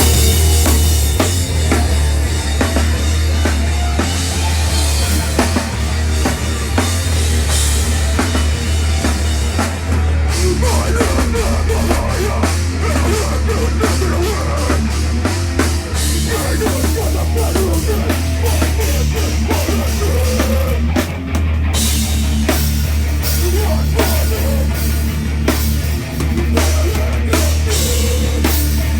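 Live heavy rock band playing loud, with a pounding drum kit over distorted guitar and heavy bass. There is a brief break in the cymbals about ten seconds in and a short dip near the twenty-one second mark.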